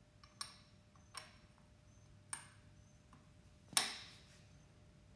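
Brass bobbin cap being fitted back onto the end of a Cowboy CB4500 leather sewing machine's cylinder arm: four faint metal clicks, the last, near the end, the loudest with a short ring.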